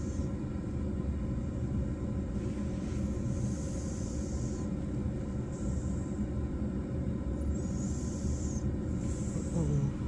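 Domestic cat purring in its sleep: a steady, even low rumble.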